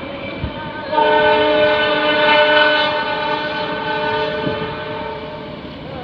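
Locomotive horn of the Argo Semeru express train sounding a loud chord of several steady tones, starting suddenly about a second in, held for a few seconds and then fading. Under it runs the noise of the train passing at speed.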